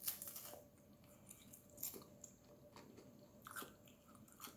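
A person chewing and biting food, faint, with short crunches coming a second or so apart.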